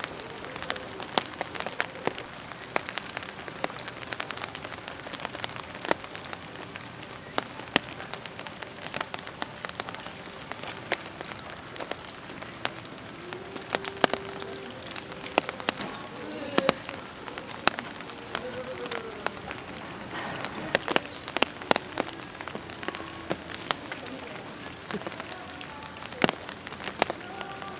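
Steady rain with many sharp, irregular drips and taps of drops striking hard surfaces.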